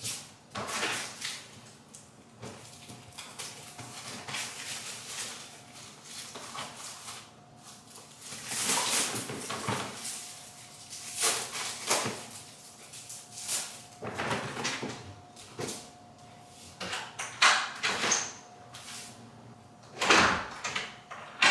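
Household handling sounds: a door and things being moved about, an irregular run of knocks, bumps and rustles, louder in clusters near the middle and the end.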